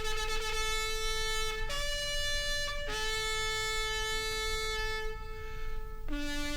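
Shofar blown in long held notes, stepping between a few pitches with short wavering flourishes where the note changes.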